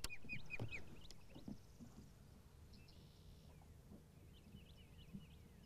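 Wild birds singing faintly: a quick run of four short repeated chirps in the first second, then scattered chirps and a brief buzzy trill. A sharp click at the very start.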